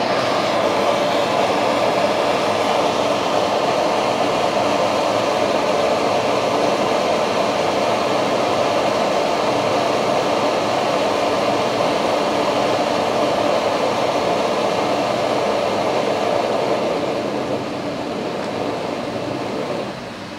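Steady rushing noise of a kitchen extractor hood fan on maximum, mixed with the burner of a PT-1 petrol primus stove fitted with a flame spreader. The sound drops noticeably a few seconds before the end and again right at the end as the stove's flame dies down.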